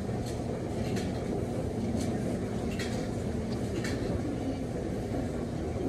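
Steady low rumble and hum of laundromat washers and dryers running. A few brief rustles of a cotton hoodie being handled and pulled on over the head sit on top.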